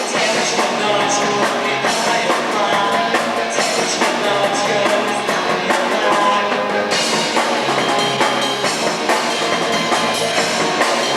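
A rock band playing live, with a drum kit driving the music.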